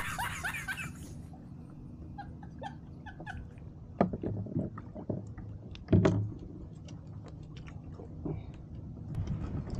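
A brief squealing, rapidly repeating sound in the first second, then scattered light clicks and two heavy knocks, about four and six seconds in, as fishing gear is handled on a plastic kayak, over a low steady rumble of wind and water.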